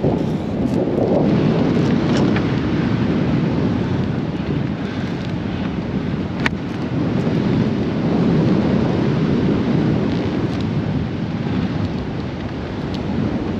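Wind rushing over the microphone of a hang glider in flight: a steady, low, buffeting rush of air with no engine, and one sharp click about six and a half seconds in.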